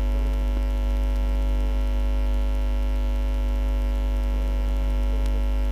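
Loud, steady electrical mains hum with a stack of overtones, picked up by the recording chain. There is a faint click near the end.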